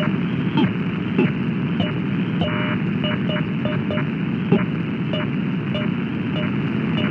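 Shortwave radio signal on 6228 kHz heard through an SDR receiver: steady static hiss with a repeating syncopated beat of short clicks and beeps, roughly every 0.6 seconds. It is an unidentified signal that the listener suspects may be a pirate station.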